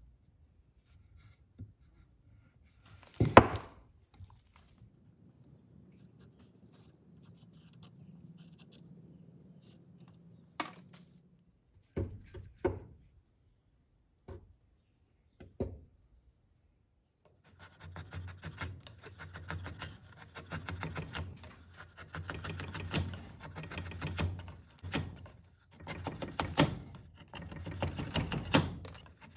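Drawknife shaving a wooden block clamped in a vise: a steady run of rasping cutting strokes through the second half. Earlier there is one loud knock a few seconds in and a few lighter knocks.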